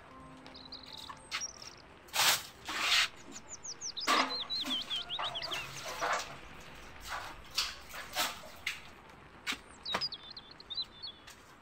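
Water sloshing and splashing in a plastic bucket drawn up from a concrete well, with the bucket and rope knocking, in a string of short splashes and knocks, the loudest about two to three seconds in. A bird chirps in a quick run of falling notes a few seconds in and again near the end.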